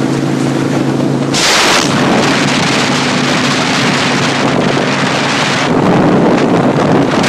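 A vehicle engine running under heavy wind noise on the microphone. About a second and a half in, a loud rush of wind noise swamps the steady engine tone, and the noise swells again near the end.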